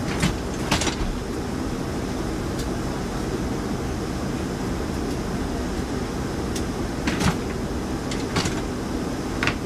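Steady low machinery hum with a few short sharp knocks and clicks, two near the start and three in the last few seconds.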